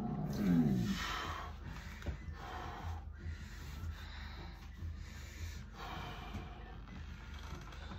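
A man's strained groan, falling in pitch, from the effort of bending a horseshoe by hand, then heavy breathing as he recovers, a deep rushing breath every second or two.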